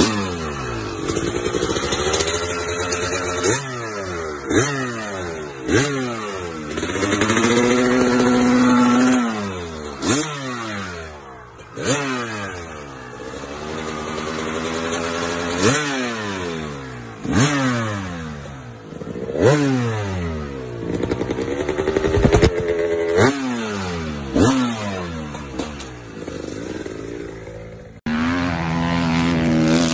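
Kawasaki KX two-stroke dirt bike engine revved over and over in sharp throttle blips, each rev climbing and then falling away, with one longer held rev about a quarter of the way in. Near the end the sound cuts to a steadier engine drone.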